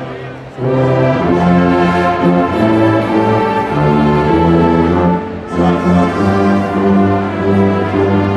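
Brass-heavy music playing slow, held chords, with a brief break between phrases near the start and another about five seconds in.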